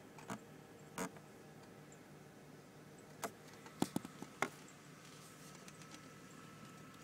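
2001 Dodge Intrepid's 2.7-litre V6 idling quietly, heard from inside the cabin as a steady low hum. Sharp clicks and knocks come about a second in and in a cluster around three to four and a half seconds in, the loudest sounds here.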